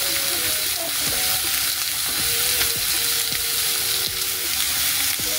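Slices of marbled wagyu beef sizzling steadily as they sear in a nonstick frying pan, with a few light clicks as chopsticks turn the pieces.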